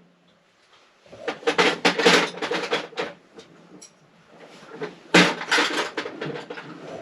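Metal hand tools and wrenches clattering and rattling as they are put away into a toolbox, in two spells of jangling knocks.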